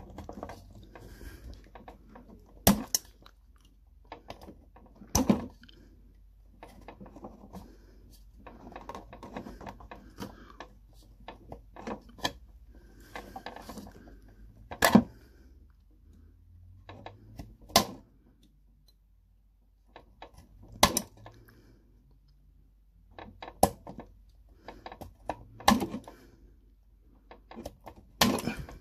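Scalpel blade scraping and shaving down a moulded plastic stub on a car dashboard storage lid, to level it off after the old catch was cut away. The scraping is uneven, with a sharp click every few seconds.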